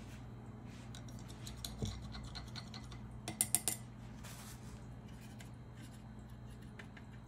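Light clicks and taps of a paintbrush handled against hard painting gear, with a quick run of three or four sharp clicks about three and a half seconds in and a brief swish just after, over a faint low hum.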